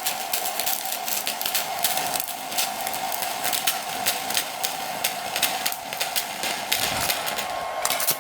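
Welding arc of a handheld stick welding gun crackling and sizzling steadily as it welds, with a steady high hum underneath.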